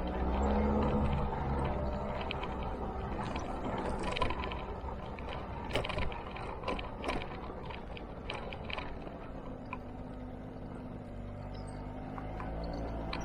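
Motor scooter's small engine running, speeding up shortly after the start and again near the end. Scattered clicks and knocks are heard in the middle.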